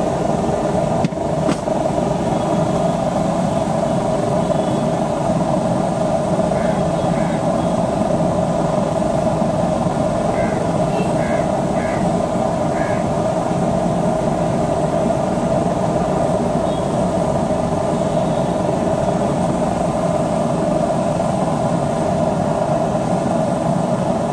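Steady mechanical drone with a strong hum, holding an even level throughout, under faint distant voices; a short knock about a second and a half in.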